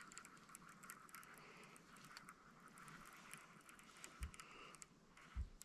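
Near silence: faint outdoor background with a few tiny ticks and two soft low thumps near the end.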